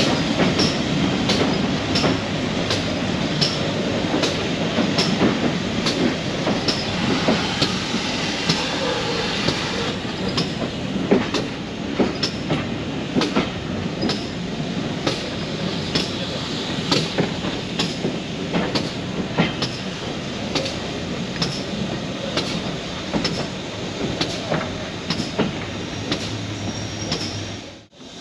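Passenger carriage of a heritage train on the move: a steady rumble of wheels on the rails with regular clicks about twice a second. The sound drops out sharply just before the end.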